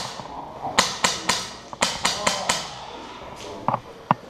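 Airsoft guns firing single shots in a bare concrete stairwell: about seven sharp cracks over two seconds, each with a short echo, then a few fainter snaps.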